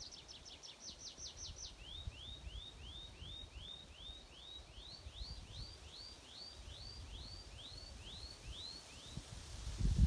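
A songbird singing: a quick run of high falling notes, then a long series of rising, upslurred notes at about three a second that stops about a second before the end. A low rumble lies underneath.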